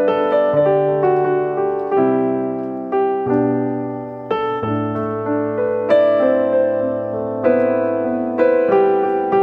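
Slow background piano music, with notes and chords struck about once a second and dying away between strikes.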